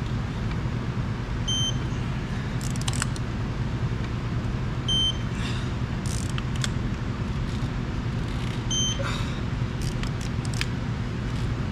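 Electronic torque wrench beeping three times, short high beeps a few seconds apart, as each bolt reaches its 100 ft-lb setting. Short ratchet clicks come between the beeps, over a steady low hum.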